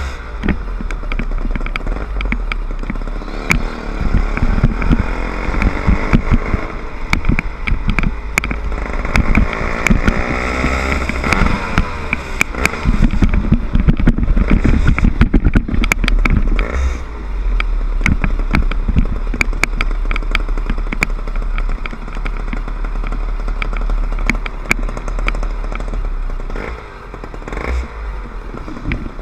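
Small 60/80cc motor bike engine running under way, rising in pitch as it speeds up about ten seconds in and easing off near the end, with frequent rattles and knocks from the bike over the road.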